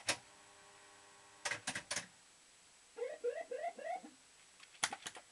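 Maygay Moon Bug fruit machine running a game: a sharp click, then a steady hum as the reels spin, a quick run of four clunks as they stop about one and a half seconds in, then a string of short rising electronic bleeps about three seconds in, and more clicks near the end.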